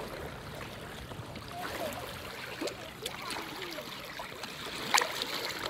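Shallow seawater lapping and trickling over rocks at the shoreline, with a sharp click about five seconds in.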